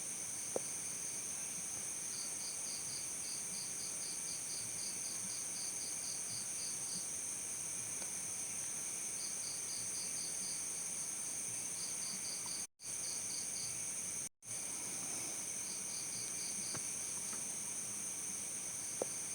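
Crickets chirping: a continuous high-pitched trill with separate runs of rapid pulsed chirps that come and go every few seconds. The sound cuts out completely twice for a moment, about 13 and 14.5 seconds in.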